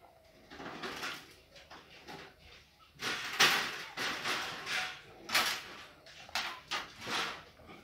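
Scraping and rattling of a wall fan's wire guard and a plastic cable tie being handled and threaded through it, in several short bursts, the longest starting about three seconds in.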